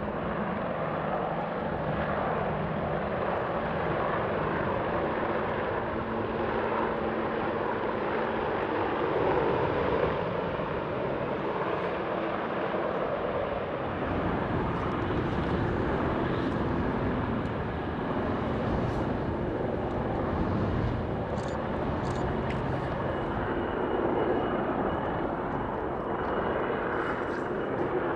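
British Army Apache AH Mk1 attack helicopters flying past overhead, a steady noise of rotor blades and turboshaft engines.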